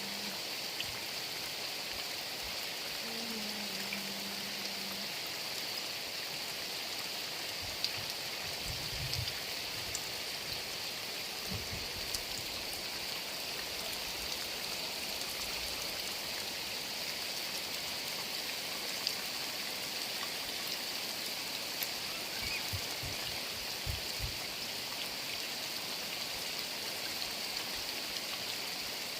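Heavy rain falling steadily, an even dense hiss with scattered sharp drip ticks. A brief low hum sounds about three seconds in, and a few soft low thumps come later.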